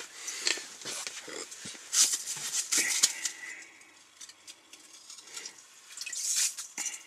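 Irregular rustling and scraping with scattered sharp clicks and knocks, close to the microphone.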